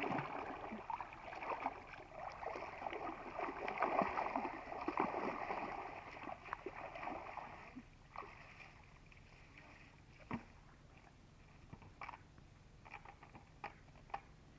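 Water splashing and sloshing for about eight seconds, then quieter with scattered small splashes and knocks.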